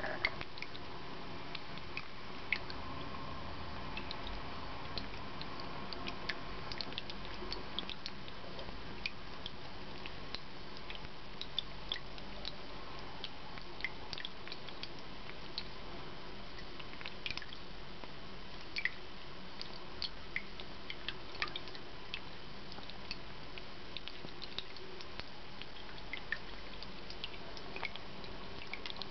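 Small tabletop water fountain trickling steadily into its ceramic bowl, with many irregular little drips and clicks.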